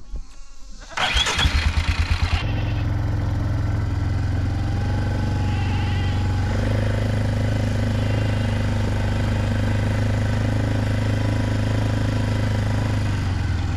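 Four-wheeler (ATV) engine being cranked by its starter for about a second and a half, catching, then running steadily.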